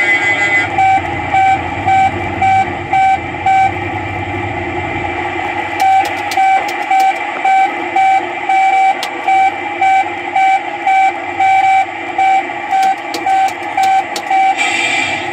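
Electronic beeping sound effect from the R.G. Mitchell Mitch the Dumper Truck kiddie ride, about two beeps a second over the ride's running background sound. It pauses for about two seconds near the four-second mark, then resumes until near the end.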